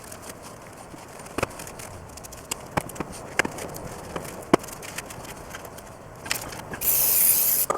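A few light metallic clinks and taps as parts are handled, then about a second of aerosol degreaser spraying with a loud hiss near the end.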